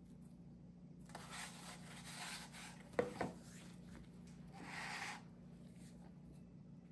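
Hands rubbing and dragging a ball of bread dough over a floured granite countertop while shaping it, with two quick knocks close together about three seconds in. A second short stretch of rubbing follows about a second and a half later.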